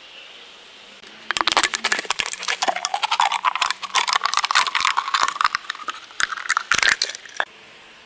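Water poured into a drinking glass, starting about a second in and stopping sharply near the end, its pitch rising steadily as the glass fills.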